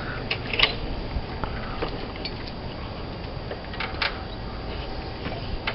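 Scattered light clicks and taps of slate pieces and tools being handled, over a steady low rumble.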